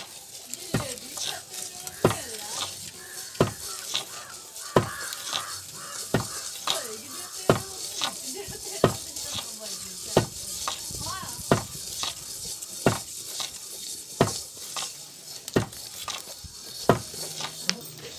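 A bundle of bamboo sticks stirring paddy roasting in a metal wok for beaten rice, knocking and scraping against the pan in regular strokes about every 0.7 seconds, over a steady hiss from the hot grain.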